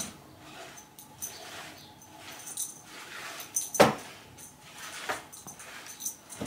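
A cat playing with a feather wand toy: soft scuffs and rustles of paws and feathers, with one sharp knock a little under four seconds in and a smaller one about a second later.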